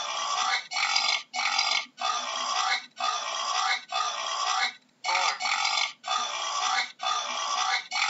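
A boar calling in a rapid series of coarse calls, about one a second, with short breaks between them and one longer pause about five seconds in.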